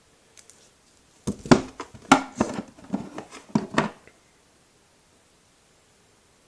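A quick run of clacks and knocks, about a dozen over two and a half seconds, from hard plastic trading-card cases being handled and knocking against each other and a wooden drawer.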